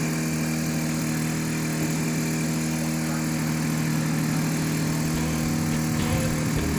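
Boat engine running steadily, a constant hum.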